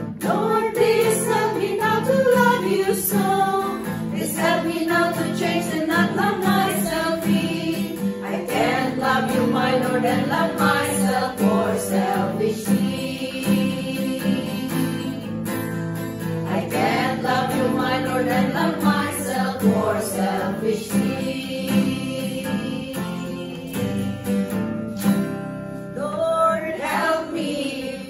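A group of women singing a Christian gospel song together, with acoustic guitar accompaniment.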